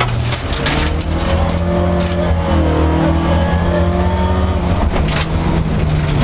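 Group H rally car's engine running hard at fairly steady revs, heard from inside the cockpit, over the rush of tyres on gravel with a few sharp stone hits.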